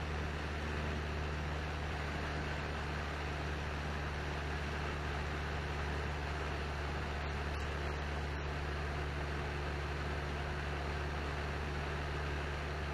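Cessna 172N's four-cylinder piston engine and propeller droning steadily in cruise, heard from inside the cabin, with an even hiss of airflow over it.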